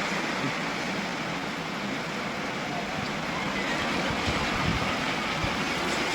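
Steady rainfall, an even hiss of rain on surfaces.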